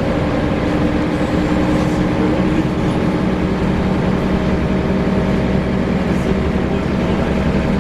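Scania L94UB bus running steadily, a mechanical drone of several low steady tones over road rumble.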